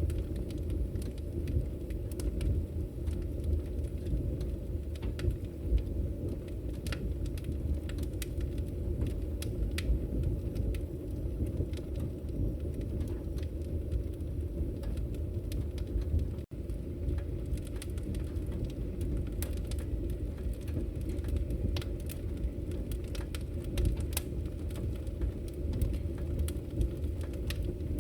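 Firewood burning: a steady low rumble of flames with frequent sharp crackles and pops, and a split-second gap a little past halfway.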